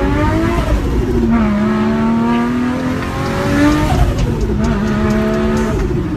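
Turbocharged Nissan Skyline R34 engine pulling hard through the gears, heard from inside the cabin. The engine note climbs, falls back at an upshift about a second in and again near four seconds in, then climbs again.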